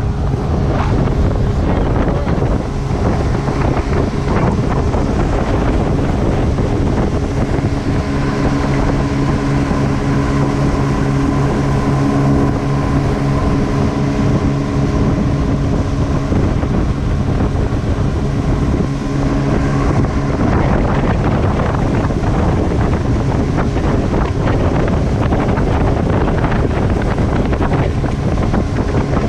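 Twin Evinrude 200 hp E-TEC outboards running at speed, under heavy wind noise on the microphone. A steady engine drone stands out about seven seconds in and sinks back into the wind about twenty seconds in.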